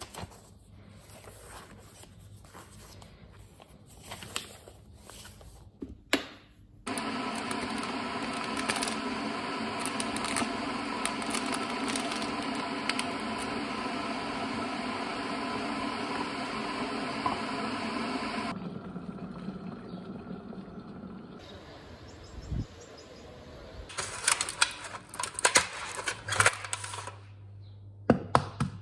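Soft handling clicks, then a kitchen appliance running with a steady hum for about eleven seconds before cutting off abruptly. Later come a quieter stretch and a run of clicks and knocks from kitchenware being handled on the counter.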